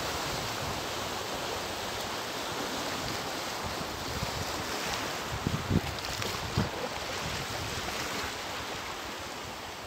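Choppy sea water lapping and washing steadily, with wind on the microphone. A few low thumps come between about five and a half and seven seconds in.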